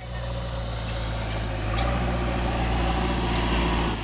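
JCB backhoe loader's diesel engine running steadily, growing louder about halfway through as it works the front loader arm.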